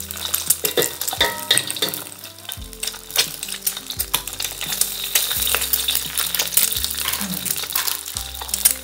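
Hot oil crackling and sizzling in a wok on a gas stove as eggs are cracked in and start to fry.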